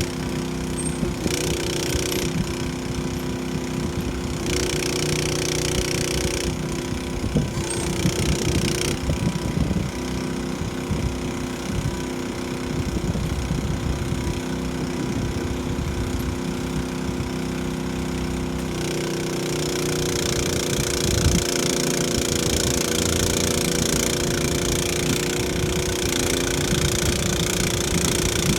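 An engine running at the unloading of a rockweed boat, its note shifting several times in the first ten seconds as the speed or load changes, then holding steadier and a little louder from about two-thirds of the way through.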